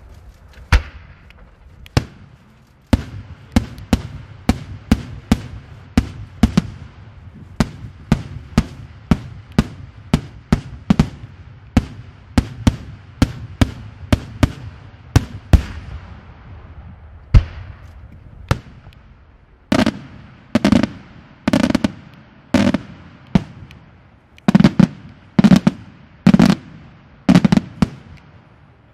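Daytime aerial firework shells bursting in a rapid series of sharp reports, about one to two a second, with one especially loud crack just past the middle. In the last third the bursts come in clusters and are heavier, each with a deeper ringing boom.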